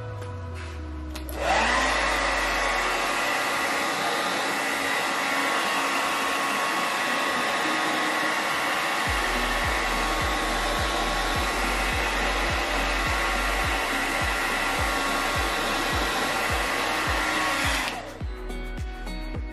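Handheld hair dryer blowing on natural hair to stretch it. It switches on about a second and a half in, with a short rising whine as the motor spins up. It then runs steadily and is switched off shortly before the end.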